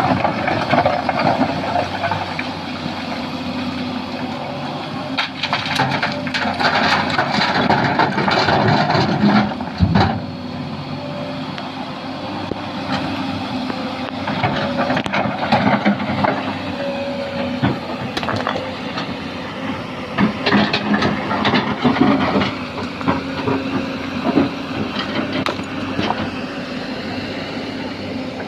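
Sany SY215C hydraulic excavator working: its diesel engine runs under varying load, rising and easing, with scattered clanks and knocks from the bucket and material, and a heavy thump about ten seconds in.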